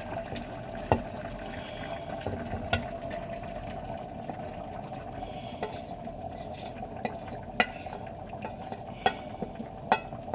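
Wooden spoon scraping strips of raw squid off a plate into a cast-iron pot of simmering ragout, with sharp taps of the spoon on the plate and pot rim every second or two over a steady low hiss.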